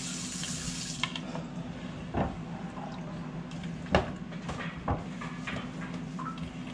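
Kitchen tap running, shut off about a second in, then scattered light clacks of a spatula stirring raw chicken wings in a plastic bowl, with rustles of paper being handled, over a steady low hum.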